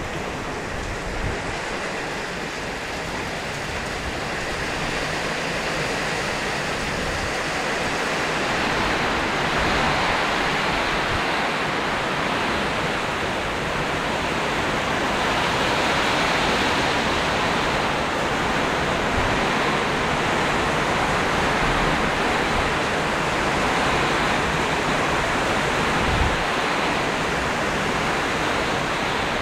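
Heavy rain pouring down in a rainstorm, a dense steady hiss that grows heavier about a third of the way in, with strong wind gusting as an uneven low rumble underneath.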